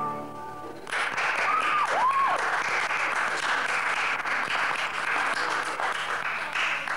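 Audience applause breaks out about a second in, as the song ends, and carries on steadily, with a brief high call rising and falling near its start.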